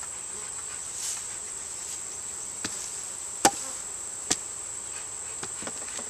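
Steady high-pitched insect chorus, with three sharp wooden knocks about two and a half, three and a half (the loudest) and four and a quarter seconds in, and a few fainter taps near the end, as the hive's wooden inner cover and boxes are handled.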